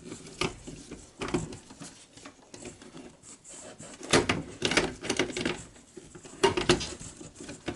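Plastic and metal clicks, taps and knocks from hands fitting parts inside an open slimline desktop computer case, in a few quick clusters.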